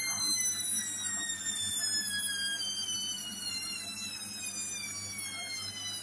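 Hoover H-Wash & Dry washer-dryer in its spin cycle: the motor's high whine falls steadily in pitch and grows a little quieter as the drum slows, over a low steady drum hum.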